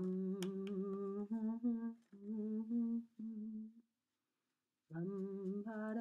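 A woman humming a melody without words, in held phrases broken by a pause of about a second past the middle.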